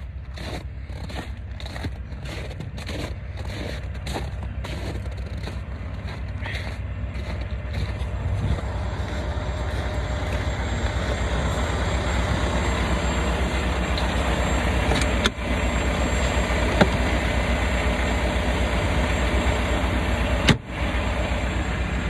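Semi truck's diesel engine idling steadily, growing louder as it comes closer, with regular footsteps through the first few seconds.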